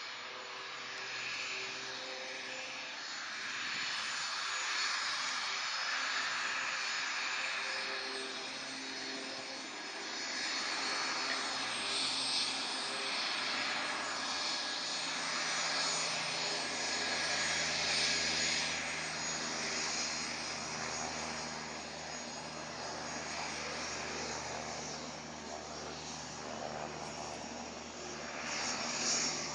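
Dassault Falcon 900 business jet's three tail-mounted turbofan engines running at taxi power: a steady jet whine and rushing hiss that rises and falls gently in level.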